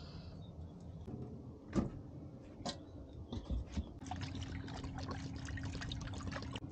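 Water poured from a plastic bottle into a metal wok, splashing and trickling from about four seconds in. Before that, a few handling knocks, the loudest one about two seconds in.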